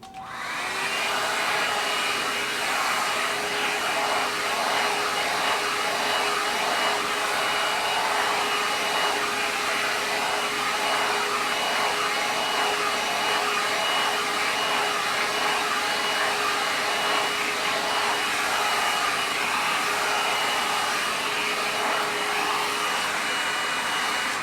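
Hair dryer brush blowing: a steady rush of air with a constant motor whine, switched on at the start and reaching full speed within about a second, then switched off at the end.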